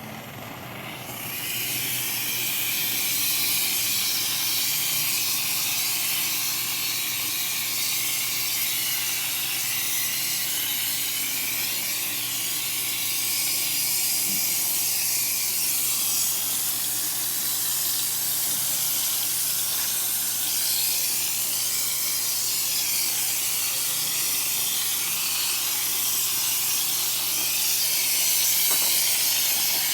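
Paint spray gun hissing steadily as it sprays, fed with air from a converted air-conditioner compressor, whose low hum runs underneath. The hiss comes on about a second in.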